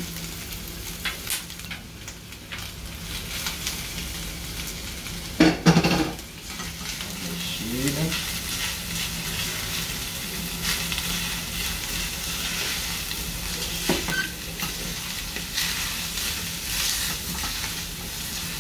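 Shredded carne seca sizzling as it fries with golden onions in a stainless steel frying pan, stirred and scraped with a silicone spatula. A brief louder sound comes about five and a half seconds in.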